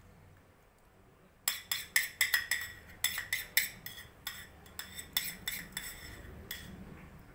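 Tableware clinking: about twenty sharp, ringing clinks in quick, uneven succession, starting about a second and a half in and stopping near the end.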